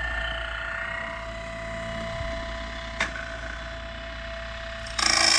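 Grindlux 4000 sawmill blade sharpener running, its grinding wheel motor humming with a steady whine. A sharp click comes about three seconds in. About five seconds in, a loud rasping grind lasting about a second as the stone grinds the gullet of the next tooth on the bandsaw blade.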